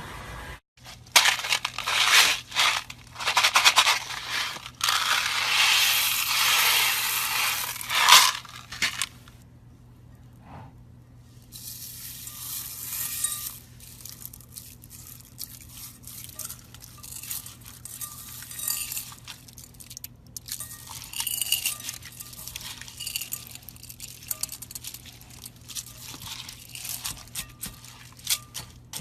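Slime being squeezed and pressed by hand, giving crunchy crackling and popping: dense and loud for the first eight seconds or so, then quieter, scattered crackles.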